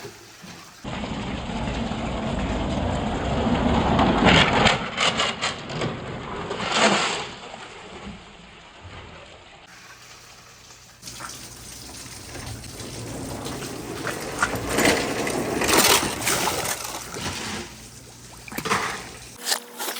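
Water running and trickling down a wooden marble run course, with marbles clicking and knocking against the wooden track as they roll. The sound changes abruptly about a second in and again about ten seconds in.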